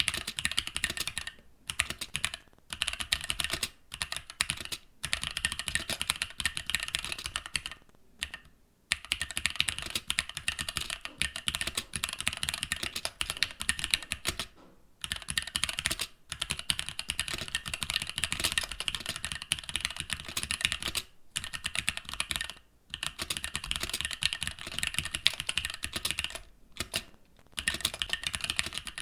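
Fast typing on a mechanical keyboard: a dense, steady stream of key clacks, broken by about ten brief pauses of under a second.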